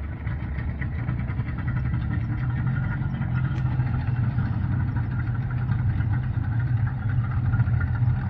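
Sea-Doo jet boat's engine running steadily at low speed as the boat manoeuvres, growing louder over the first couple of seconds and then holding even.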